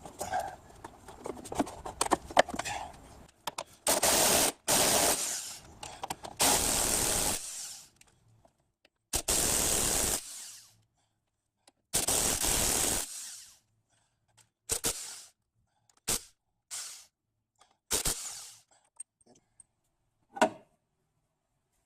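A power tool run in repeated bursts of about a second, with short blips later on, as bolts are taken out during engine teardown; light clatter of tools and parts before the first burst.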